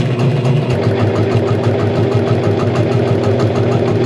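APQS George sit-down longarm quilting machine stitching at a steady speed during free-motion quilting: a steady motor hum under a fast, even ticking of the needle.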